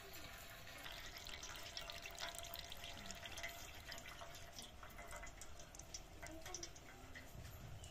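Ripe palmyra palm pulp squeezed by hand through a cloth, its juice trickling and dripping into a steel bowl in many small, irregular drips. The sound is faint.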